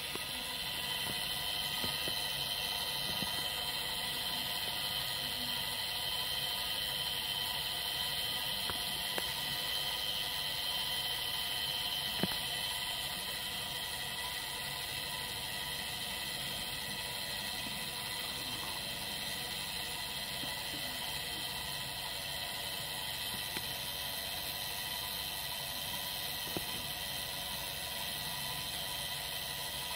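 Anniversary clock's gear train running free under the mainspring with the escapement taken out, a steady whir as the hands spin round the dial. The whir eases slightly partway through, with a faint tick now and then.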